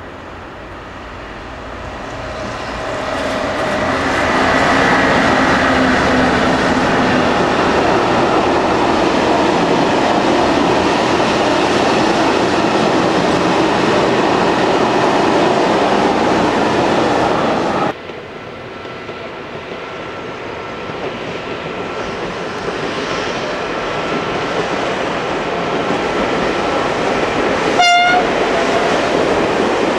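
Freight train passing close, its locomotive and empty flat wagons rumbling and clattering over the rails, the noise swelling as it comes by and then dropping suddenly. Another freight train follows, quieter, with a short horn blast near the end.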